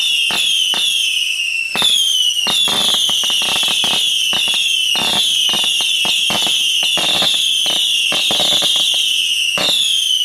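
Fireworks whistling: a continuous run of shrill whistles, many overlapping, each falling slightly in pitch, with scattered pops and crackles throughout.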